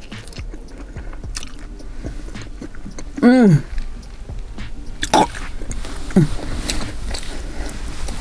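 Close-up chewing and biting of chicken wings, with many small wet clicks and crackles. About three seconds in a short voiced hum falls in pitch, the loudest sound here, and a fainter one follows near six seconds.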